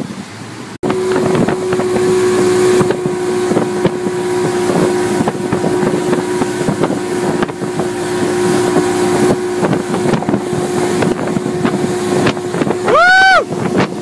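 A Robalo R227 boat's outboard engine running at a steady speed on the water: a steady whine over wind and water noise, starting abruptly about a second in. Near the end a short tone swoops up and back down in pitch.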